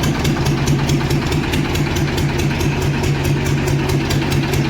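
Swaraj 724 tractor's two-cylinder diesel engine idling steadily with its silencer removed, an open, loud exhaust with an even pulsing beat.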